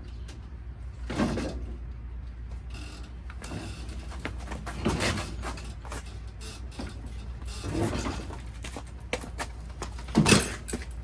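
Scattered mechanical clunks and clicks over a low steady hum, with the loudest knock near the end.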